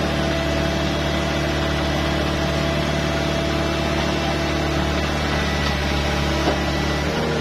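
Hitachi Zaxis ZX110MF excavator's diesel engine running steadily at a constant speed, with one brief tick about six and a half seconds in.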